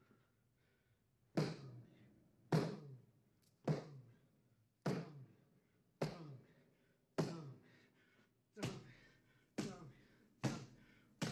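A man's fists pounding a jail cell wall in heavy, regular blows, about one a second, starting about a second and a half in. Each thud rings briefly in the small cell.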